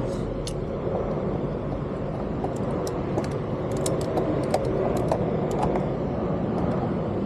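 Small irregular metallic clicks and ticks of a T25 Torx bit working screws out of a motorcycle's body panel, over a steady low background noise.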